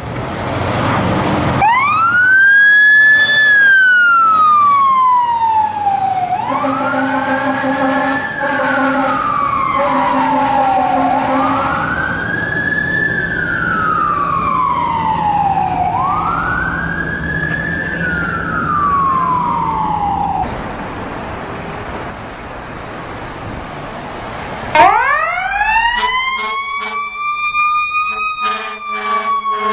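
Fire truck siren wailing, each sweep rising quickly and falling away more slowly, with horn blasts on steady tones partway through. After a noisy gap, a second fire engine's siren starts winding up with horn tones near the end.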